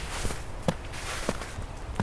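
Footsteps crunching in snow at a steady walking pace: three steps, each a gritty crunch with a dull thud underfoot.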